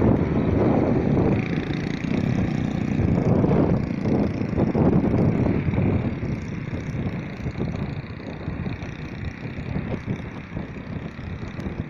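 Strong gusty wind buffeting the microphone, a dense low rumble that rises and falls, with vehicle traffic noise underneath; it eases a little in the second half.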